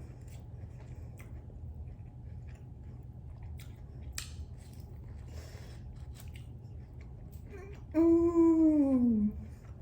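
Person chewing food with faint mouth clicks over a steady low hum, then near the end a drawn-out 'mmm' that falls in pitch.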